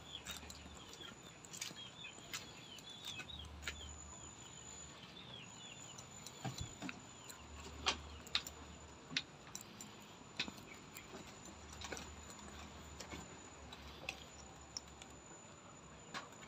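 Quiet, with scattered light knocks and clicks from someone moving about on a wooden floor. Faint bird chirps sound through the first few seconds.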